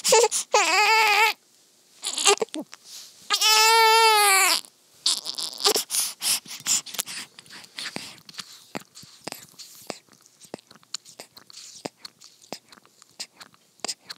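Newborn baby crying: a short wavering cry at the start and one long cry about three seconds in. Then quick irregular wet clicks and gulps as she sucks and swallows milk from a baby bottle's nipple.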